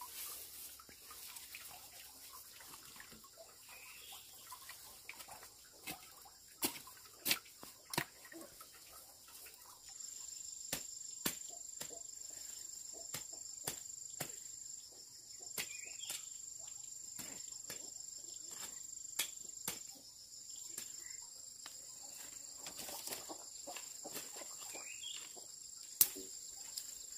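Insects calling in a steady high-pitched drone that grows stronger about ten seconds in and briefly breaks off twice. Scattered sharp knocks and clicks sound throughout, the loudest one near the end.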